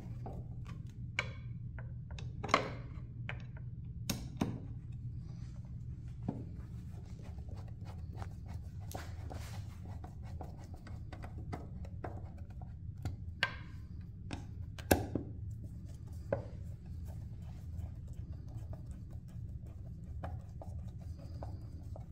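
Hand screwdriver turning screws into a Kawasaki Ninja 400's plastic airbox lid: scattered clicks and knocks of the tool and screws against the plastic, over a steady low hum. The two sharpest knocks come about two and a half seconds in and about fifteen seconds in.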